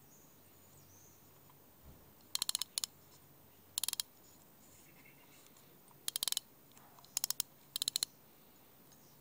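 1950s Monti Super half-bale fixed-spool reel clicking as its front is worked by hand: about six short bursts of quick, sharp clicks from the reel's mechanism, starting about two seconds in.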